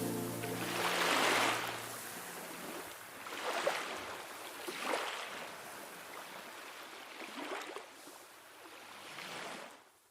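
Sea waves washing in, one swell after another every second or so, growing fainter until they fade out just before the end. Steady music tones die away in the first second or so.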